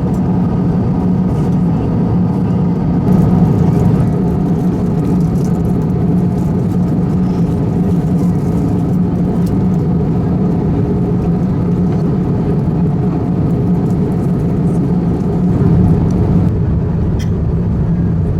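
Steady in-flight cabin drone of an Airbus A350-1000 in cruise, with its Rolls-Royce Trent XWB engines and airflow making an even roar over a constant low hum.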